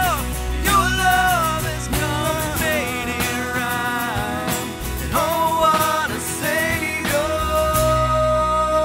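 Live worship band music with acoustic guitars and a full band, a bending, sliding melody line over it that settles into a long held note about seven seconds in.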